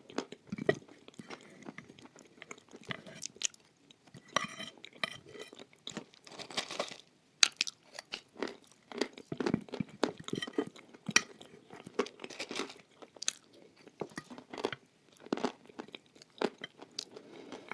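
A person chewing chalk paste with many irregular, sharp crunches.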